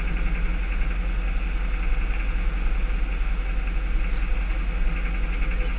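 Tow truck engine idling steadily, a constant low drone.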